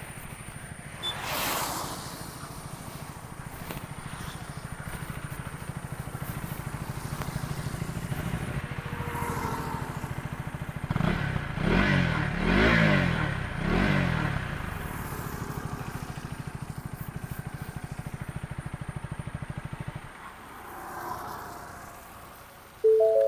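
KTM Duke 250's single-cylinder engine running steadily, revved up and down three times about halfway through, then going quiet about 20 seconds in.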